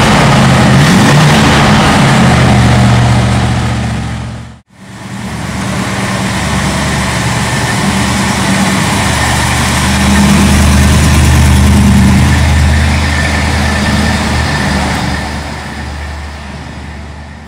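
1974 Buick LeSabre's 455 cubic-inch V8 running, heard close at the tailpipes. After the sound cuts out briefly about four and a half seconds in, the car drives slowly up and away: the engine gets louder as it comes near, about ten seconds in, then fades.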